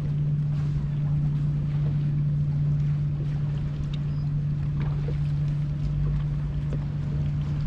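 A boat motor running steadily: an even low hum that holds one pitch, over a faint low rumble.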